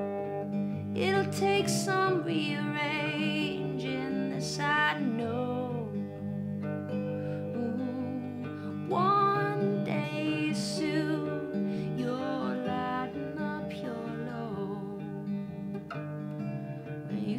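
Acoustic guitar played steadily, with a woman's singing voice over it in phrases, some held notes wavering with vibrato.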